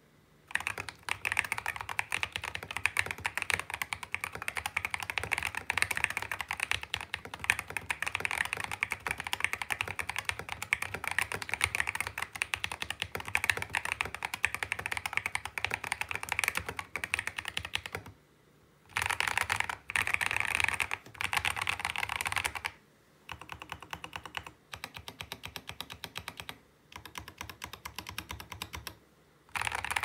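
Mechanical keyboard with lubed Akko CS Lavender Purple tactile switches in a tape-modded case filled with polyfill and foam, typed on fast: a dense, unbroken run of keystrokes, then shorter bursts of typing with brief pauses in between over the second half.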